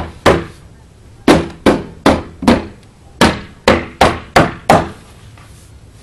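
A mallet tapping a lightweight storm window panel along its edge to seat it in the window frame. There are sharp strikes at about two and a half a second, in runs of four or five with short pauses, and they stop near the end.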